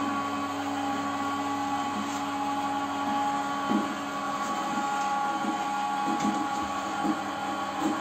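Drive motor of a home-built robot-vacuum lift running as the platform climbs its rail: a steady motor whine with several held pitches. From about halfway in, a scatter of short knocks and rattles joins it.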